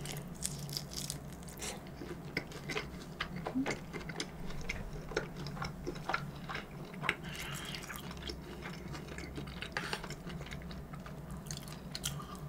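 Close-miked chewing and mouth sounds of a person eating, with scattered short clicks.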